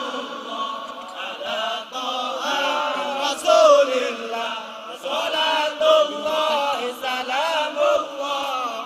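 Voices chanting an Arabic sholawat (devotional song in praise of the Prophet) without words, in a long melodic line that glides up and down.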